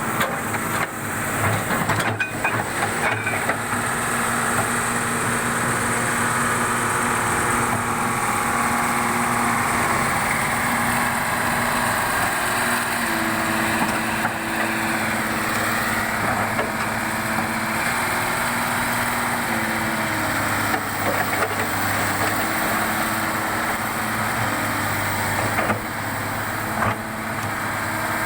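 Tracked excavator's diesel engine running steadily, its pitch stepping up and down several times as it works, with a few sharp knocks in the first seconds.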